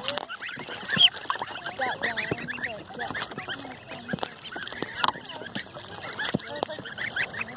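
A flock of ducklings and goslings peeping and cheeping continuously, many short calls overlapping, with a few sharp knocks among them, the loudest about a second in.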